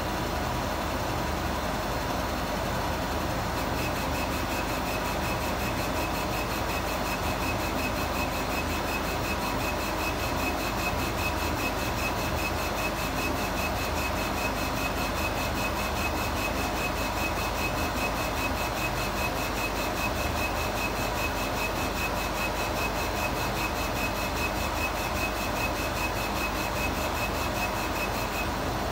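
Laser engraver running as its head rasters back and forth engraving text: a steady machine hum, with a rapidly pulsing high whine from the head's motion that starts about four seconds in and stops just before the end.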